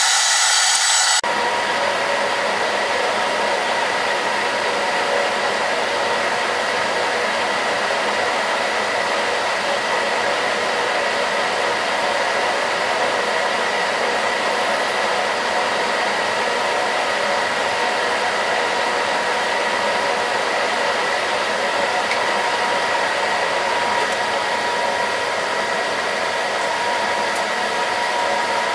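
Metal lathe and its motor-generator drive running: a constant machine hum with steady whining tones. About a second in, a brighter, louder rasp from a file held against the spinning work stops abruptly and only the steady running remains.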